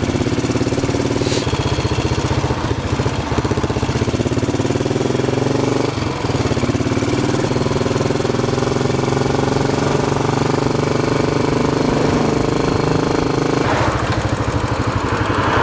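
Royal Enfield Bullet 500's single-cylinder four-stroke engine running under way at a steady road speed, with a rapid, even firing beat. The engine note dips briefly about six seconds in.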